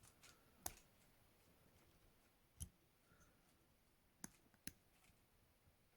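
Four faint clicks of a lock pick working in the keyway of a weathered ISEO padlock, spread a second or two apart.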